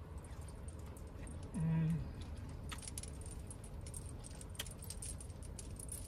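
Seafood boil shells picked apart by hand in a bowl: scattered small clicks and crackles. A short hummed "mmm" comes about one and a half seconds in, over a steady low hum.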